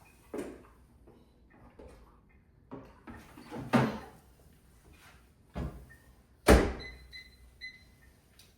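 A few household knocks and thuds, the loudest a sharp bang about six and a half seconds in, like a door or cupboard shutting. Then come a few short electronic beeps, like an appliance's keypad.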